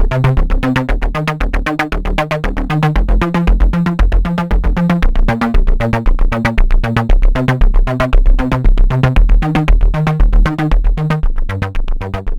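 Electronic background music: a synthesizer disco bass loop with a steady fast beat and a stepping bass line.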